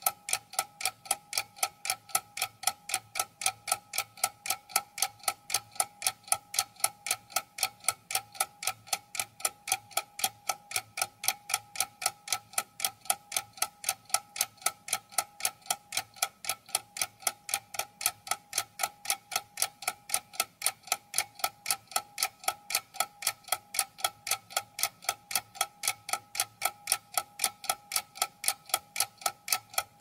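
Old mechanical clock ticking at a steady, even pace, each tick with a slight metallic ring.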